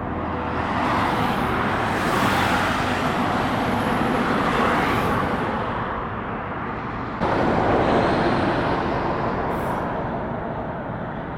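Road traffic: vehicles passing by, a rush of tyre and engine noise that swells and fades. It changes abruptly about seven seconds in, when another vehicle rises and fades away.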